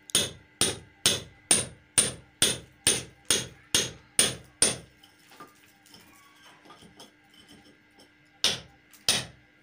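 Hand hammer striking a chisel held against a concrete block wall, cutting a recess for a switch box. About two blows a second for roughly eleven blows, a pause of a few seconds, then two more blows near the end.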